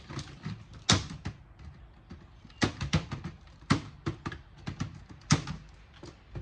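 Irregular clicks and knocks of hand tools and metal and plastic parts being handled while a stereo receiver is stripped for scrap, with the sharpest knocks about a second in and again near the middle.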